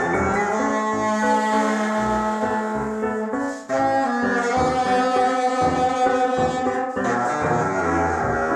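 Contemporary art-music with saxophone: long held notes sounding together with other sustained pitched tones, with a brief drop in loudness about three and a half seconds in.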